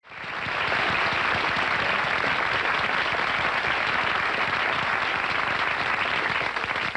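Studio audience applauding, a steady, dense clapping that fades in quickly at the start.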